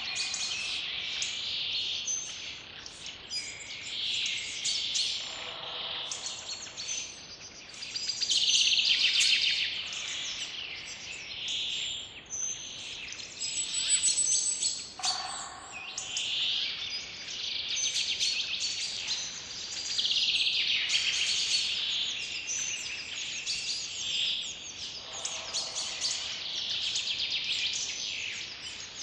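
Forest birdsong: many small birds chirping and trilling over one another, swelling and falling in loudness every few seconds.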